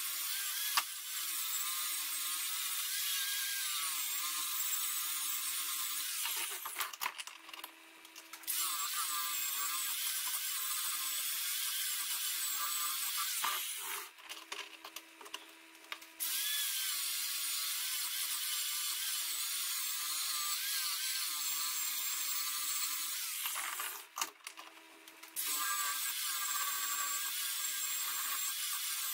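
Wire wheel brush spinning in an electric drill and scrubbing rust off a steel hammer head: a harsh scratching hiss over the drill motor's whine. It stops briefly three times before starting again.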